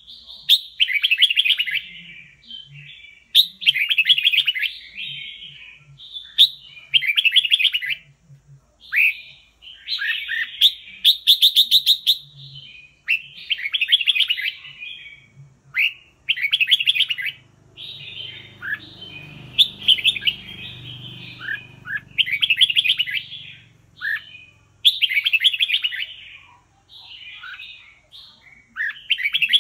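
Red-whiskered bulbul singing: short bright warbled phrases, each about a second long, repeated every second or two.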